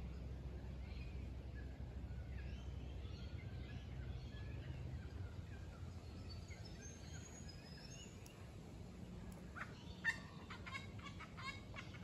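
Faint, scattered songs of several small birds, then about ten seconds in a burst of harsh, repeated squawking calls from little wattlebirds. A low steady rumble runs underneath.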